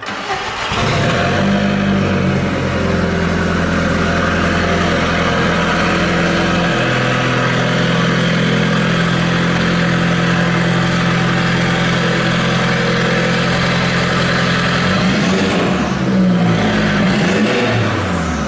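Audi TT engine with a newly fitted downpipe cold-starting and settling into a steady idle, then revved a few times near the end.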